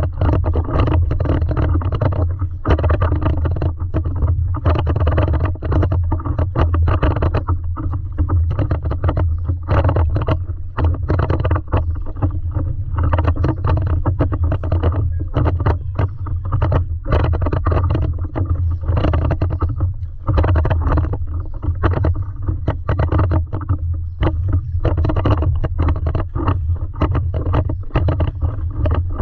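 Water sloshing and slapping against a stand-up paddleboard as it is paddled, with many irregular small splashes over a steady low rumble.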